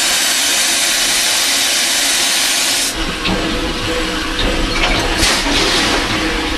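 Steam hissing loudly in a steam tank locomotive's cab for about three seconds, then cutting off. A low rumble with scattered knocks follows, with another short hiss of steam about two seconds later.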